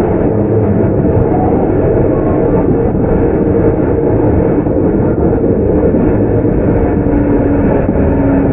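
Tokyu 9020-series commuter electric train running between stations, heard from inside the car: a loud, steady rumble of wheels on the track, with a faint hum and a short low tone coming in near the end.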